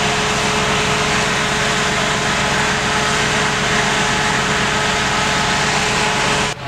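Fire engine's engine running steadily while pumping water to the charged hose lines: a loud, even drone with a constant whine over it, stopping abruptly near the end.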